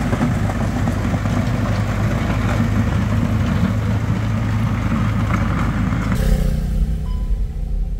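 Case 580 Super backhoe loader's diesel engine running steadily at idle. About six seconds in the sound changes abruptly to a quieter, lower rumble.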